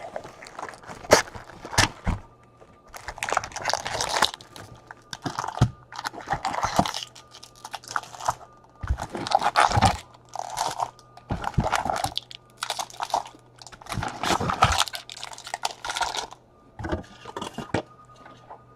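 Baseball trading-card boxes and foil packs being torn open and handled. Irregular crinkling and tearing of wrappers, with a few sharp clicks and knocks.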